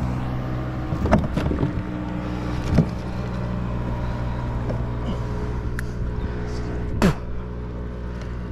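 A steady low engine drone, with a few sharp thumps and splashes about one, three and seven seconds in as a cownose ray thrashes in a landing net against the kayak.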